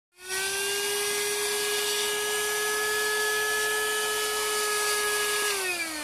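Voroly VR-12SBVC handheld car vacuum cleaner running with a steady high motor whine and airflow hiss. About five and a half seconds in it is switched off and the whine falls in pitch as the motor winds down.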